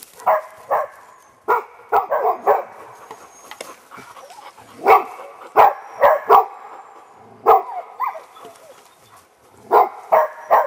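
Hunting dog barking repeatedly, in quick bunches of two to four barks with short pauses between them.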